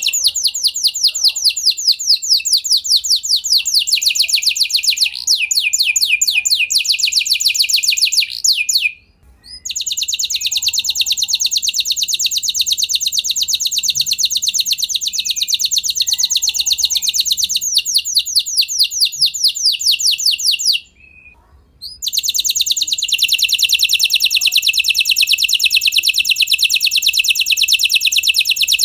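Domestic canary (kenari F1) singing long rolling trills of fast repeated high notes. It breaks off briefly twice, about nine and twenty-one seconds in.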